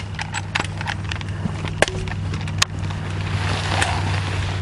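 A steady low hum with scattered sharp clicks and cracks, the loudest two coming about two seconds in. Near the end, a plastic tarp crinkles as someone pushes through it.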